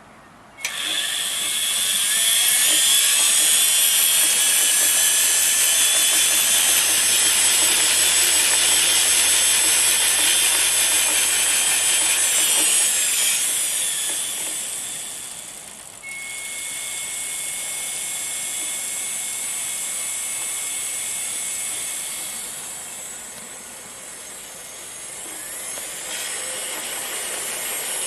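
Homebuilt e-bike's washing-machine motor running at 80 V, with a high, drill-like whine. It dies away a little over halfway through, then runs again somewhat quieter with a steady high tone.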